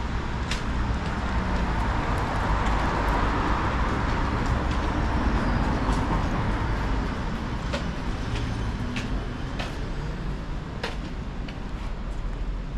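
City road traffic running steadily with a low rumble. One vehicle swells louder and passes in the first half, and the noise fades away near the end, with a few light clicks throughout.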